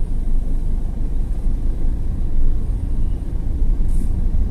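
Steady low rumble of a car's engine and tyre noise, heard from inside the cabin while it drives slowly around the terminal lane.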